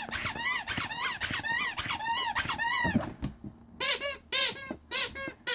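Vintage Ledraplastic rubber squeeze toy squeaking as it is squeezed over and over, about four squeaks a second, each rising then falling in pitch. It stops for about a second, then a second run of squeaks with a different tone starts.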